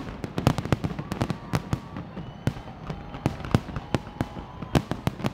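Fireworks display going off: a dense, uneven string of sharp bangs and crackles, several a second.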